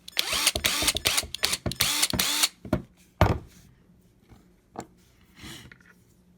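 Rapid rattling clicks like an impact driver hammering, for about two and a half seconds, then a single sharp click a little after three seconds in, followed by a few faint ticks.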